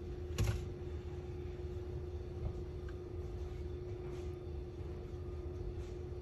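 Steady low rumble with a constant hum, and a single click about half a second in.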